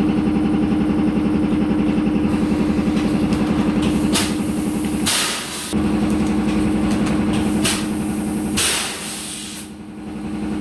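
Piston air compressor running with a steady, pulsing mechanical hum that dips out briefly about five seconds in and again near nine seconds. Several short crinkles of thin plastic bottles and bag being handled sound over it.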